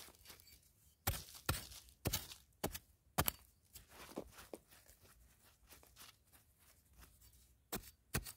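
Hand-digging in dry, stony soil: a gloved hand and a metal digging blade scraping and knocking at the earth in irregular sharp strokes, several loud ones in the first few seconds and two more near the end.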